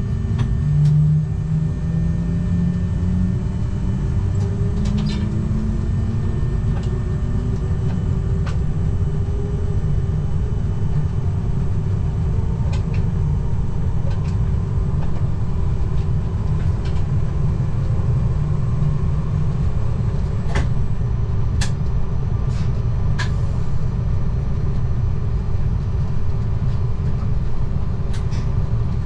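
Z20500 double-deck electric train heard from the driver's cab as it accelerates: the traction motors' whine climbs in pitch over the first few seconds, then settles into a steady running rumble. Occasional sharp clicks from the track come through the rumble.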